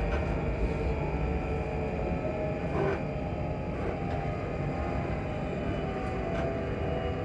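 Class 334 electric multiple unit's traction motors humming steadily over the low rumble of the wheels on the rails, heard from inside the carriage, with a few faint knocks.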